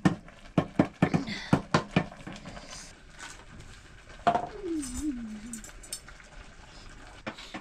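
Kitchen utensils knocking and clinking during cooking: a quick run of sharp knocks, about three a second, in the first two seconds, then a few scattered clinks. About halfway through comes one short call that falls in pitch with a waver.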